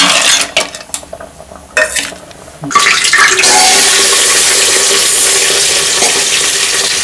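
Batasa and rock-sugar pieces tipped from a plate into an aluminium pot of simmering milk, with a few knocks at first. About three seconds in, a steady, loud swishing begins as a steel ladle stirs the milk in the pot.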